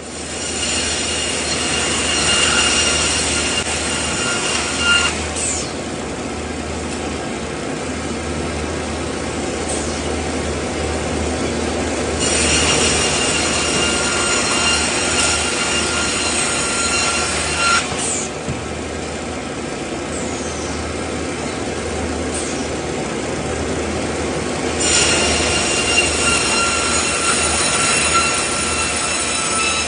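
Sawmill machinery running steadily, with a high-pitched metallic whine from the saw cutting wood three times, each cut lasting about five seconds and stopping abruptly.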